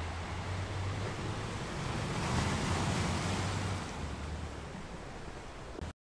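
Sea surf washing over and breaking against rocks, swelling to a louder rush about halfway through, then cutting off suddenly near the end.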